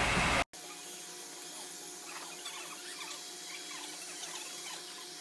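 A hair dryer blowing, cut off abruptly half a second in; then fast-forwarded salon audio at six times speed: a steady high whine under rapid, squeaky chirps.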